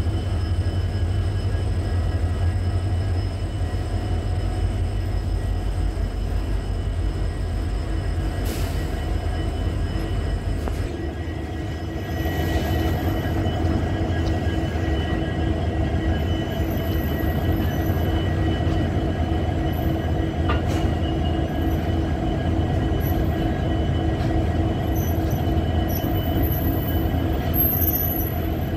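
Indian Railways freight train of tarpaulin-covered BOXN open wagons rolling past at close range: a steady rumble and clatter of wagon wheels on the rails. Short, high-pitched wheel squeals come in now and then in the second half.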